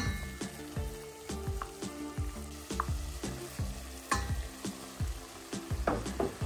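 Food sizzling as it fries in a pan, stirred with a spatula that clicks against the pan about twice a second.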